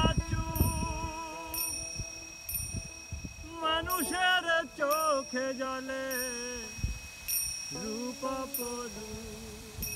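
A slow Bengali folk song: a man's voice sings long, wavering, sliding notes over a string instrument, while small metal hand cymbals are struck every second or so and keep ringing.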